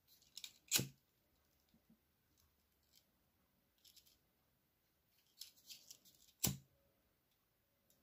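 A small lighter being clicked: a sharp click about a second in and another near the end, with faint handling ticks and rustles in between. The second click relights the flame.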